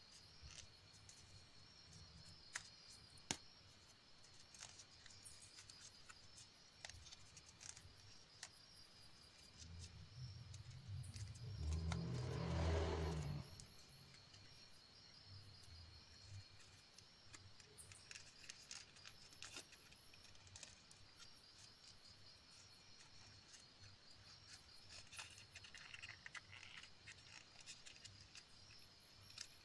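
Origami paper being folded and creased by hand: faint crinkles and light clicks. About ten seconds in, a louder low rushing sound swells and cuts off abruptly some three seconds later, over a faint steady high chirring.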